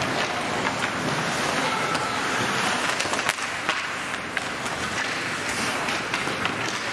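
Ice hockey rink sound during play: a steady hiss of skates on the ice and arena noise, dotted with sharp clicks of sticks and puck, with one louder crack about three seconds in.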